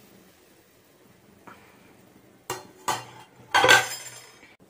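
Metal pot lid handled and set down: two light metallic clinks, then a louder clattering clank with a short ring about three and a half seconds in.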